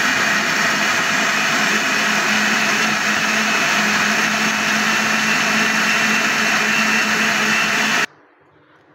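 Electric blender running at full speed, grinding tomatoes, onions and spices into a wet purée: a loud, steady whir with a low motor hum underneath. It cuts off suddenly about eight seconds in.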